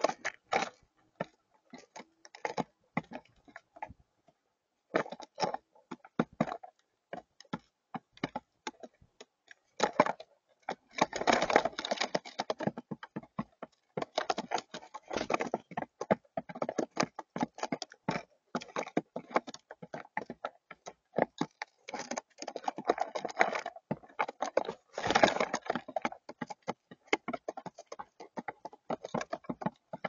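Rock pigeons pecking at peanuts and seed on a hard tabletop close to the microphone: rapid, irregular taps and clicks, with a couple of louder, busier flurries.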